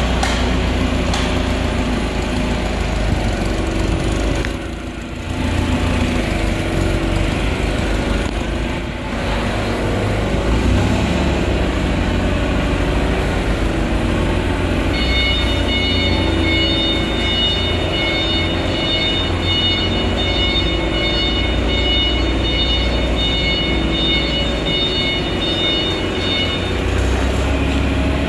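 Nissan K21 four-cylinder petrol/LPG engine of a HELI 1.8-ton forklift running as the forklift is driven, with a steady hum. About halfway through, a high electronic warning beeper joins for about twelve seconds.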